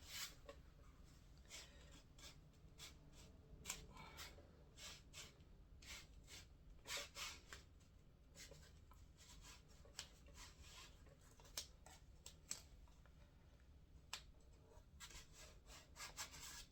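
Faint, scattered rubbing and rustling of a vinyl skin being slid and smoothed by hand onto an RC car body.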